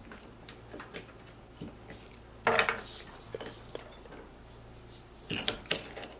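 Small metal clinks and taps of washers and a nut being handled and fitted onto a bolt, with a louder ringing clink about two and a half seconds in and a quick cluster of clicks near the end.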